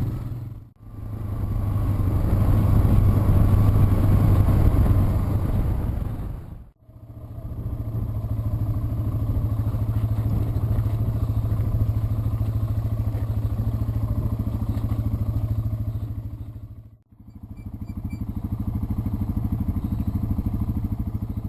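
Yamaha TW200's single-cylinder four-stroke engine running steadily while the bike is ridden, cutting out abruptly three times.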